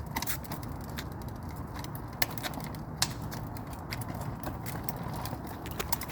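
Small motorcycle running low and steady, with scattered clicks and crackles over it.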